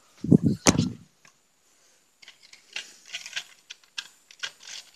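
Two dull bumps in the first second, then scattered light clicks and rattles from a plastic toy train and its track being handled.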